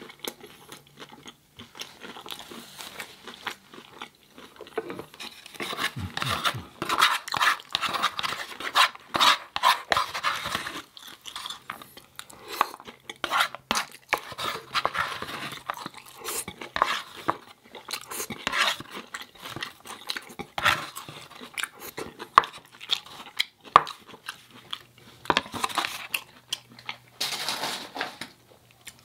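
Eating sounds: crunchy chewing of taco-bowl food, with utensils clinking and scraping against a dish, in irregular bursts that are busiest in the first half.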